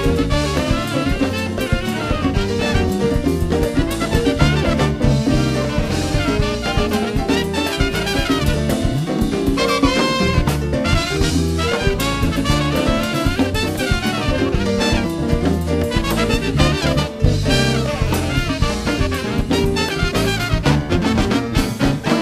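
Live jazz band playing a mambo-influenced number: drum kit, electric bass, keyboard, trumpet and saxophone together, up to a final held chord right at the end.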